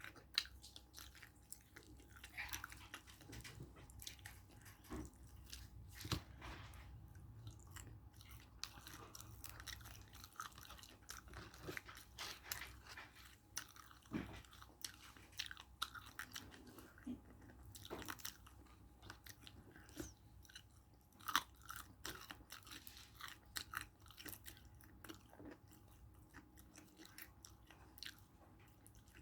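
Close-up chewing and crunching of fried chicken: irregular crackly bites and chewing, with a few sharper crunches.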